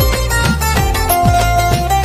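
Instrumental interlude of a Bengali film love song, without singing: melody instruments play sustained notes over a steady beat of low drum hits that drop in pitch.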